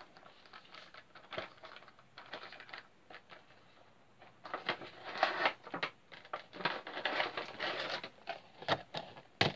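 A cardboard Funko Pop box being handled and opened: scattered taps and clicks, then two stretches of cardboard and plastic rustling and scraping, and a sharp knock near the end.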